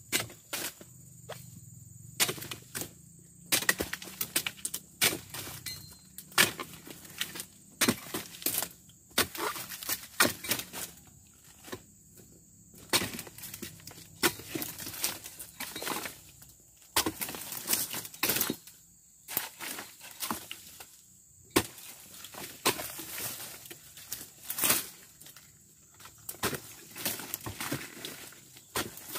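A dodos, a chisel-bladed pruning pole, chopping into the hard frond bases of an unpruned oil palm: irregular sharp strikes, sometimes several in quick succession.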